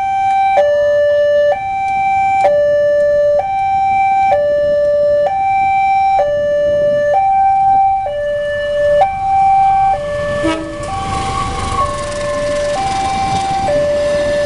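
Level-crossing warning alarm sounding a steady two-tone chime, high then low, switching about once a second. About ten seconds in, the rumble of a diesel-hauled stainless steel passenger train running over the crossing builds up beneath it.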